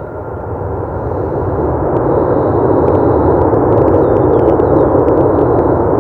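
Jet airliner engines roaring, growing louder over the first two seconds and then holding steady.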